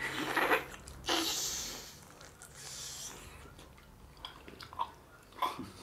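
Close-up eating sounds: a person biting and chewing mutton with rice, with small wet mouth smacks and clicks. There are two longer hissing, breathy noises in the first two seconds.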